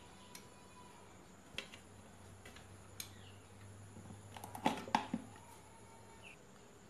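Scattered small clicks and knocks from hands handling an opened plastic electric iron on a wooden bench, loudest in a quick cluster of knocks a little after halfway.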